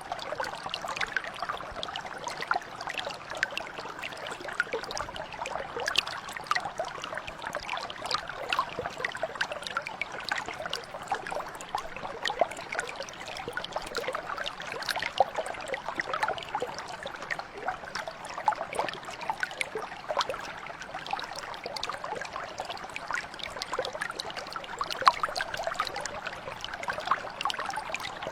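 Small stream or mountain brook flowing steadily, water trickling and splashing over stones with many small bright splashes.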